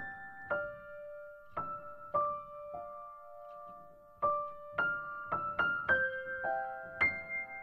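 Background piano music: a slow, gentle melody of single struck notes and small chords, each left to ring and fade.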